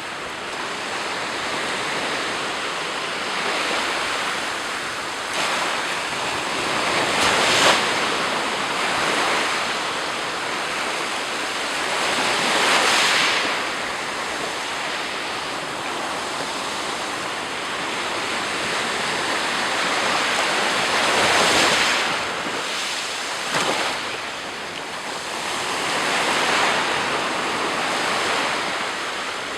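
Sea surf: waves breaking and washing onto the shore in a continuous rush, swelling and fading with each wave every five to eight seconds.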